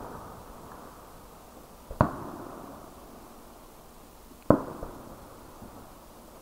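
Aerial fireworks shells bursting: two sharp booms about two and a half seconds apart, each followed by a rolling echo that dies away.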